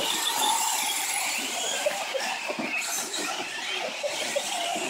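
A pack of radio-controlled 4WD short course trucks racing on a dirt track: several motor whines overlapping, rising and falling as the trucks speed up and slow down, over tyre and gravel hiss with a few small knocks.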